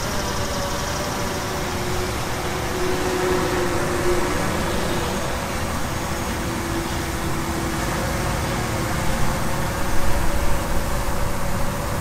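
DJI Mavic 2 Pro quadcopter hovering: its propellers make a steady drone with two tones that waver slightly in pitch, over a rough low rumble.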